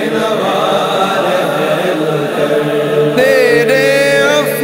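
Backing voices chanting in a dense, layered hum for an Urdu devotional hamd. About three seconds in, a solo voice enters with a long, held, wordless melodic line that bends slightly in pitch.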